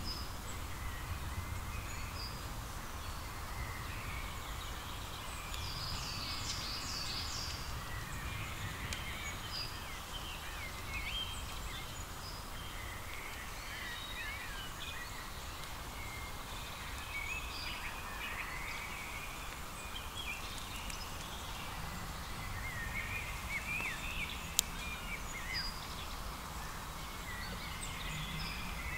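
Small birds chirping and twittering on and off over a steady low background rumble. There is one sharp click late on.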